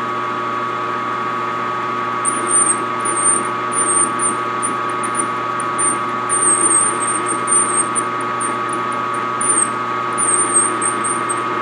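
Metal lathe running with a steady whine while a grooving tool takes light, hand-fed cuts in 304 stainless steel under cutting oil. From about two seconds in, a thin, very high-pitched squeal from the cut comes and goes again and again, the tool working the tough, work-hardening stainless.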